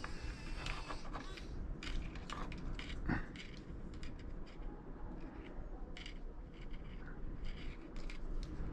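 Faint scattered clicks and light rattles from handling a 3D printing pen and its paper instruction leaflet.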